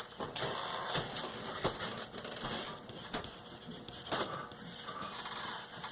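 Writing on foam board: scratchy strokes of a drawing tip on the board's paper face, with small taps in between.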